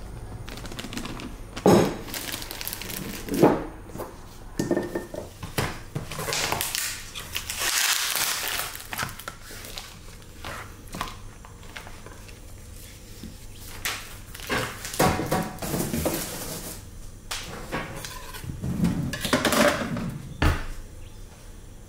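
Kitchen handling noises: plastic bag and meat packaging rustling and crinkling, with scattered sharp knocks and clinks of a ceramic bowl and of raw pork chops being set down on a wooden cutting board.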